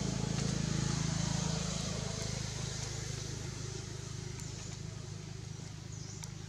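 A motor vehicle's engine running steadily with a low hum, loudest about a second in and slowly growing fainter as it moves off.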